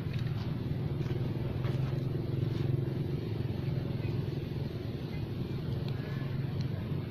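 Steady low mechanical hum that holds at an even level throughout, with a few faint high chirps over it.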